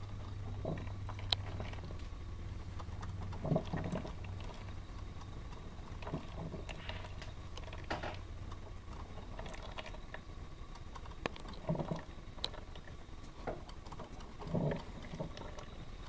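Black & Decker drip coffee maker heating its water before the brew reaches the carafe: a low steady hum through roughly the first half, with scattered short sputters and clicks.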